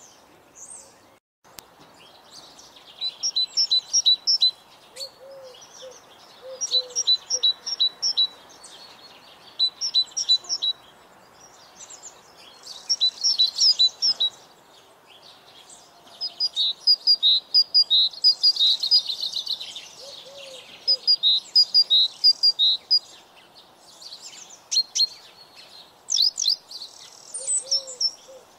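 Small songbirds singing: short songs of quick high chirps, repeating every few seconds with brief pauses between them.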